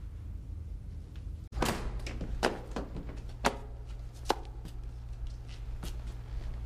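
A steady low hum, then after a cut about a second and a half in, scattered sharp knocks and clicks from people shifting and stepping in a crowded corridor, about half a dozen spread over several seconds.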